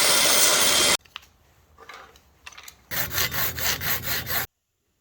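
Hand tool worked back and forth on wood: a loud steady rasping second that cuts off abruptly, a few faint clicks, then rhythmic strokes at about five a second.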